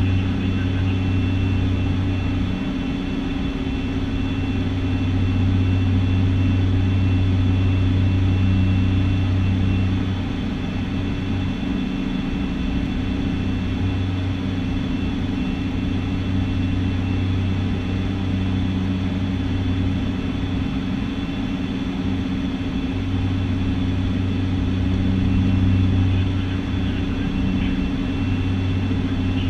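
Twin Pratt & Whitney PT6A turboprop engines and propellers of a Piper Cheyenne II droning steadily in the cockpit in cruise-descent, with a thin steady high whine above. The deep low part of the drone slowly swells and fades every few seconds.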